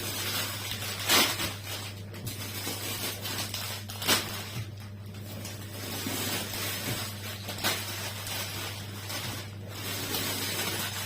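Frozen-food packaging being handled and rustled, with two sharper crackles or knocks, one about a second in and one about four seconds in, over a steady low hum.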